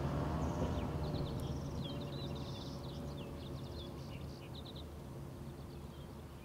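Steady hum of a large quadcopter's motors and 14-inch propellers, slowly fading as the craft flies away, with small birds chirping repeatedly.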